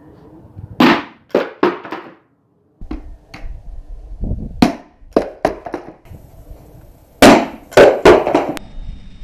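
A large hammer repeatedly striking a Steelbird SB-42 motorcycle helmet, about a dozen sharp hard blows in irregular bursts. The heaviest blows come near the end.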